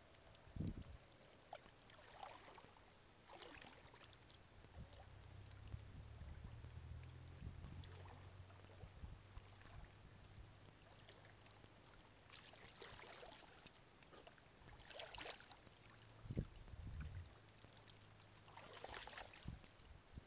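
Faint sloshing and splashing of shallow seawater in a few short, scattered bursts, over a low, steady hum.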